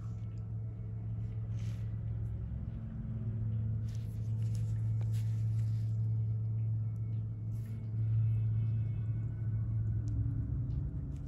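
A steady low hum that grows a little louder about four seconds in, with a few faint clicks on top.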